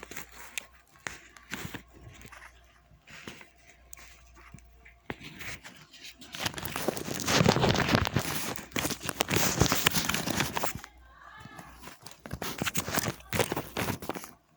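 Close handling noise as the recording device is repositioned: rustling and crinkling with scattered clicks and knocks, loudest in a dense stretch of several seconds in the middle.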